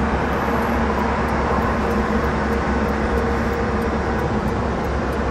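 A 1952 Ford Crestline Sunliner convertible under way with the top down: steady road and wind noise with a low rumble, its flathead V8 running smooth and quiet underneath.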